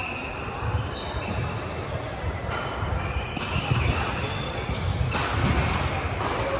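Badminton singles play on a hall court: several sharp shuttlecock hits off racket strings, with sneakers squeaking on the court mats between them, over the constant noise of a busy sports hall.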